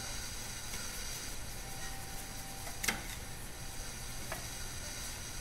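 Small hand tool and parts clicking against the metal housing of a Bridgeport milling-machine power feed as switches are fitted inside it: one sharp click about three seconds in and a softer one over a second later, over a steady faint hiss.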